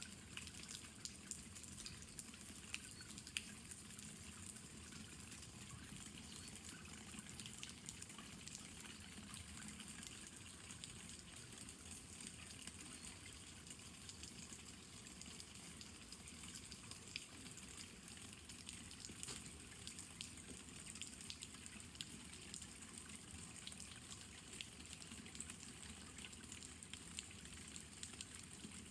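Steady spring rain, a soft even patter with many small drop ticks and a few louder ones now and then.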